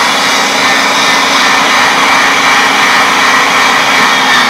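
Cabela's heavy-duty electric meat grinder running steadily under load, a loud motor drone with a steady hum, as elk meat is pushed through the auger for its second grind.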